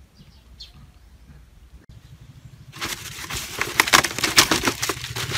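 Quiet outdoor background, then about three seconds in a dense run of crackling and rustling from hands working with potting materials.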